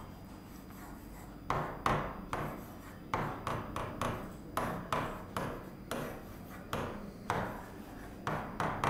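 Pen writing on a board: a run of short, irregular strokes, roughly two a second, beginning about a second and a half in.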